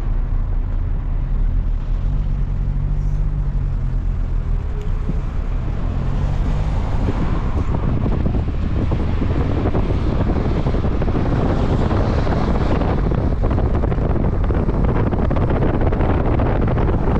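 Motor vehicle on the move: a steady low rumble of engine and road noise, growing louder and hissier from about six seconds in.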